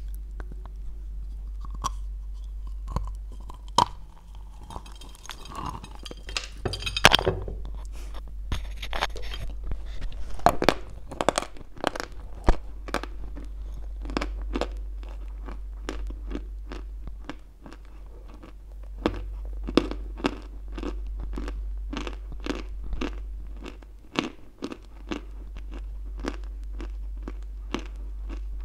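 A chunk of white Turkestan chalk bitten off with a loud crunch about seven seconds in, then chewed close to a clip-on microphone, with sharp, regular crunches about twice a second.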